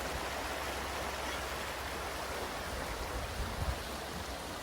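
Running river water, a steady rushing noise, with a short low rumble about three and a half seconds in.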